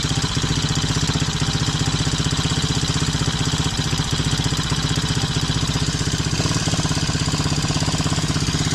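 Small mini quad (ATV) engine running steadily, with a rapid, even firing beat and no change in speed. The engine is running well on a freshly cleaned carburettor.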